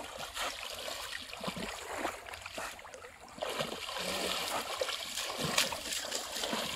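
Shallow muddy paddy-field water splashing and sloshing as people wade quickly through it, legs and hands kicking up repeated splashes, with a quieter lull about three seconds in.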